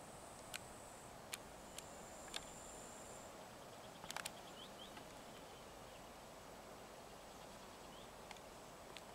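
Faint outdoor quiet with scattered sharp clicks, a tight cluster of them about four seconds in, and a thin, high, steady whine through the first three seconds.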